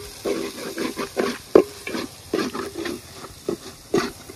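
Slotted metal spatula scraping and clinking against a wide metal pan in quick, uneven strokes, stirring onion-tomato masala and spice powders as they fry in oil.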